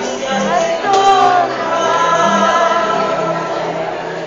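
A violin ensemble playing live, with held notes and a few sliding pitches.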